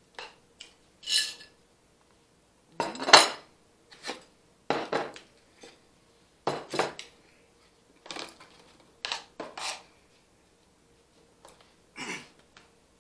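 Plates and cutlery clattering on a tabletop as dishes are pushed aside and containers set down: a string of separate clinks and knocks, the loudest about three seconds in.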